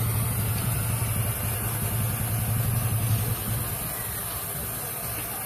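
An engine running steadily nearby, a low hum that fades away after about three seconds, over the hiss of a gas brazing torch's flame.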